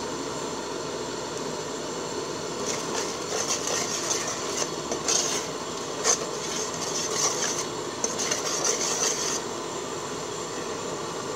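Metal spoon stirring a pot of curry and scraping against the aluminium pot, in a run of rasping strokes through the middle with one sharp knock about six seconds in, over a steady hiss.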